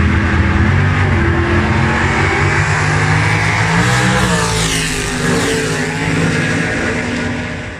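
V8 muscle-car drag racer at full throttle down the strip, loud, its engine pitch climbing and dropping back with each upshift. It passes close about halfway through and fades away near the end.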